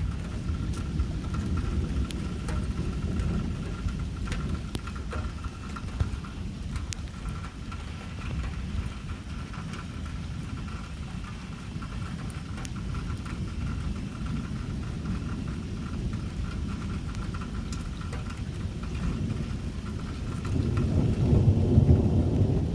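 Thunderstorm: rain falling with scattered drop ticks over a continuous low rumble of thunder, which swells louder near the end.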